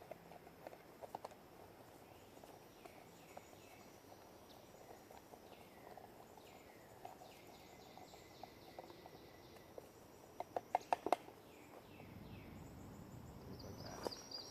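Outdoor ambience of birds and insects calling: a run of high, downward-sliding whistled notes. About ten seconds in there is a quick cluster of sharp clicks, the loudest sound, and then a low rushing noise builds, with rapid high chirps near the end.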